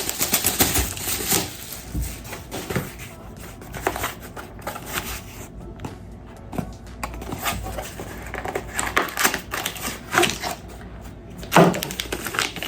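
Quick irregular clicking and rustling of objects being handled on a bench, with a louder knock near the end.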